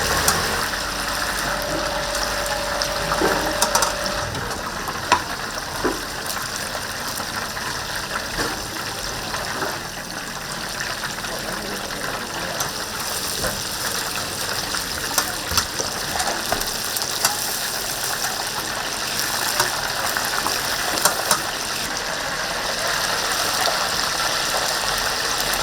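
Steady hissing kitchen noise with scattered clicks and clatter, and a short steady tone a couple of seconds in.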